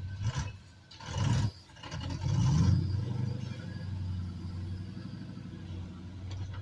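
Off-road truck engine running low and steady, with two short revs, about a second in and again around two and a half seconds in, as it crawls over rocks.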